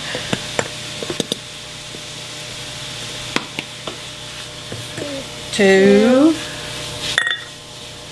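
Ground sausage sizzling steadily in a skillet, with scattered light clinks of a metal measuring cup scooping flour from a glass jar. A little past the middle, a short voice sound rising in pitch is the loudest thing.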